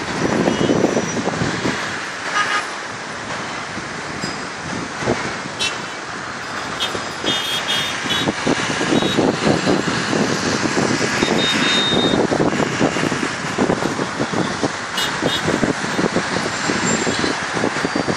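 Busy road traffic going by below, a steady wash of engines and tyres, with short horn toots now and then.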